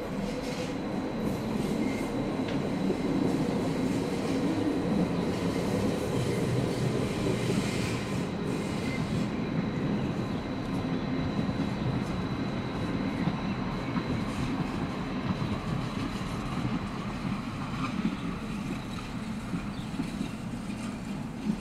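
Train running on rails: a steady rumble with wheel clatter and a thin, steady high-pitched wheel squeal that fades out in the last few seconds.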